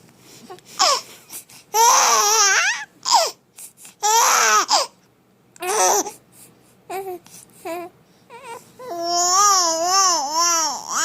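Babies crying in short high-pitched wails, with a longer wavering wail near the end.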